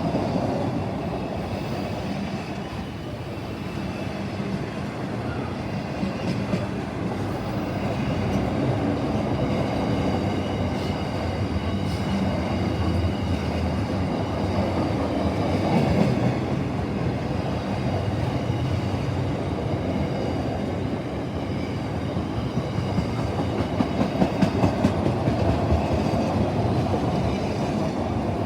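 A train running along the line with a continuous wheel-on-rail rumble, and a quick run of wheel clicks over rail joints near the end.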